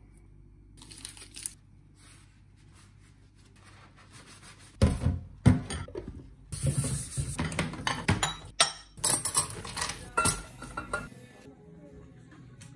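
Dishes being washed by hand in a stainless steel sink: ceramic bowls and cutlery clinking and clattering against each other and the sink, starting about five seconds in and stopping about two seconds before the end.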